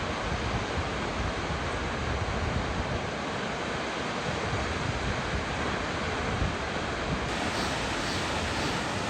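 Steady rushing roar of a large waterfall, Salt Creek Falls, with no breaks. The sound shifts slightly about seven seconds in.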